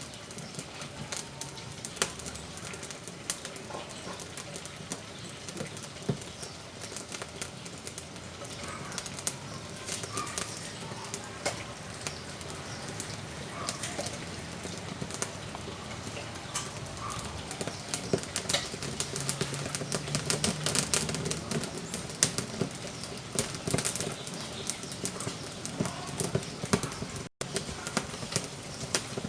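Wood fire crackling in a wood-burning cookstove: irregular sharp pops and snaps over a steady hiss, coming thicker about two-thirds of the way through.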